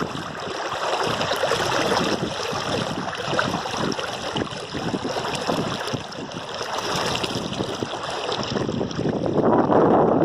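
River water flowing with a steady rushing sound that swells louder about nine seconds in.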